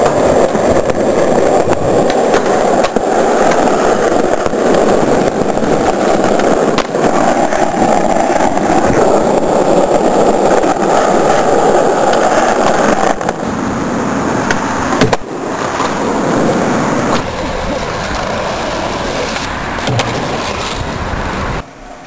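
Skateboard wheels rolling on pavement, a steady loud rumble broken by a few sharp clacks of the board. The rumble drops and changes a little past halfway, then falls quieter just before the end.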